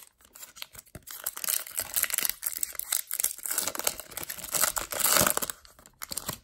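Foil wrapper of a Topps Chrome baseball card pack being torn open and crinkled by hand as the cards are pulled out, a dense crackle that is loudest near the end.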